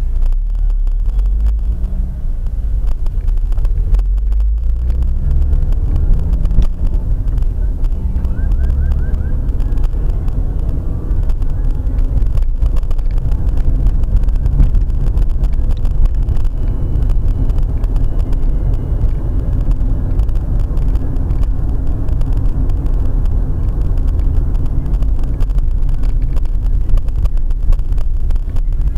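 Car engine and road rumble heard from inside the cabin as the car pulls away from a traffic light and accelerates, the engine note rising through several gear changes in the first few seconds, then a steady cruising drone.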